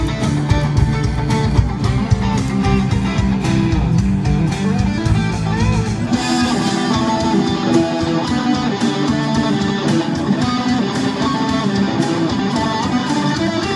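Electric guitar music, with busy picked notes over lower accompaniment. About halfway through, the deep low end drops away and the sound turns brighter.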